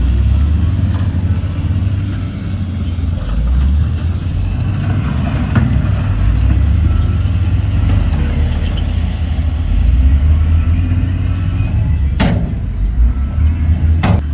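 Heavy diesel earthmoving machinery running with a steady low rumble, with two sharp knocks near the end.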